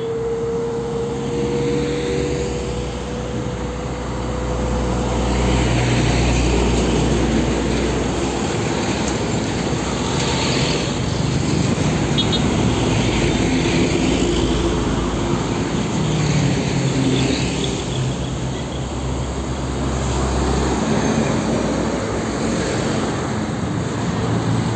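Heavy diesel trucks and a motorcycle passing close by on a busy road: continuous engine and tyre noise that rises and falls as each vehicle goes by.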